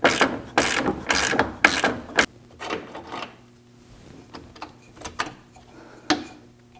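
Hand ratchet wrench being worked back and forth on a bolt, about two clicking strokes a second, stopping a little over two seconds in. After that, a few faint metal clicks from wrench handling.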